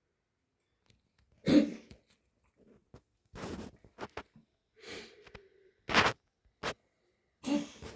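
A pet coughing in a run of short, harsh coughs, about six of them, the loudest about a second and a half in and again about six seconds in.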